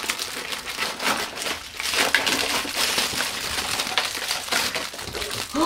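Cellophane bag crinkling and cardboard box scraping as a bagged chocolate Easter egg is worked out of its box, a continuous irregular crackle.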